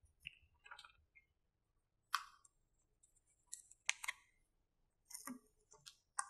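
Faint string of short clicks and paper rustles from pink paper fraction strips being handled.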